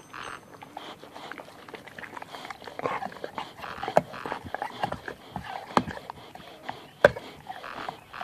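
A dog gnawing on a knobbed rubber chew toy: irregular sharp clicks and chomps, a few of them louder, along with the dog's breathing close to the microphone.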